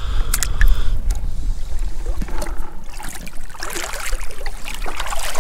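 Shallow seawater splashing and sloshing as a crab is let go into it and feet wade through the shallows, over a steady low rumble, with a few sharp clicks in the first second.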